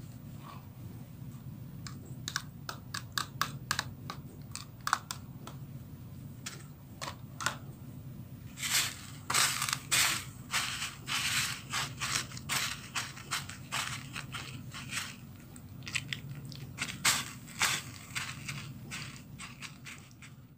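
Dry breadcrumbs crunching and scratching under fingers as macaroni balls are pressed and rolled in them on a metal tray. The crackling comes in uneven spells, busiest around the middle, over a low steady hum.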